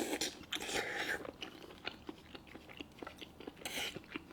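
A person chewing braised pork knuckle close to the microphone: soft, wet chewing with many small clicks, and short louder bites or slurps near the start and about three and a half seconds in.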